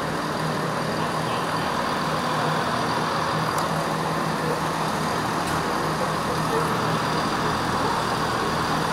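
Class 142 Pacer diesel multiple unit standing at the platform with its underfloor diesel engine idling, a steady low hum.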